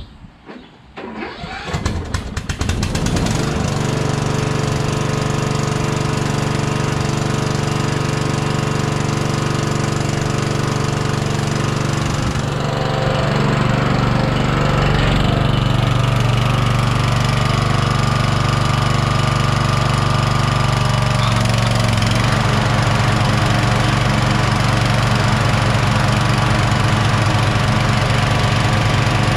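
Toro LX460 lawn tractor's 20 hp Kohler Courage engine cranked by its starter and catching within about three seconds, then running steadily. Its note steps up about twelve seconds in and shifts again around twenty-one seconds, while the tractor is driven forward.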